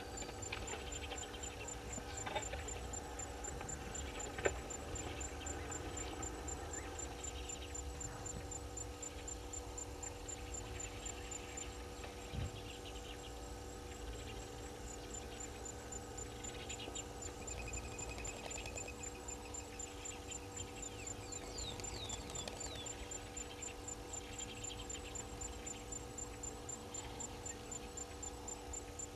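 Steady electrical hum with a low rumble beneath it, and a faint, evenly repeating high-pitched pulse over the top. A bird gives a few short, falling calls about two-thirds of the way in.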